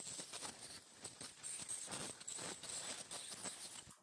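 Ultrasonic dental scaler working on a dog's teeth to remove tartar: a thin, steady high whine over a crackling, scratchy noise from the tip on the teeth. It cuts off suddenly at the end.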